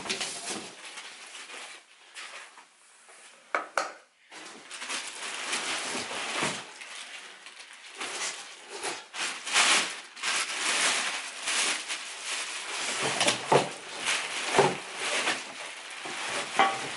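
Unboxing a wheel: cardboard box flaps pulled open, then clear plastic wrapping crinkling and rustling as an alloy wheel is pulled out of it, with scattered clicks and knocks. It goes quieter for a moment about two seconds in, then the crinkling picks up and keeps going.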